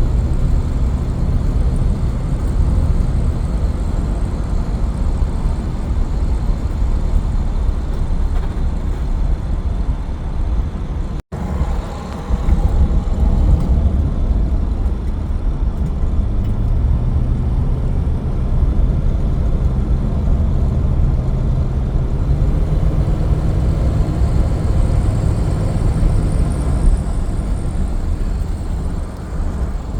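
Dodge Charger's 318 small-block V8 running under way, heard from inside the cabin with road rumble. The engine note climbs gradually from about the middle of the stretch and falls back near the end, and the sound cuts out for an instant about eleven seconds in.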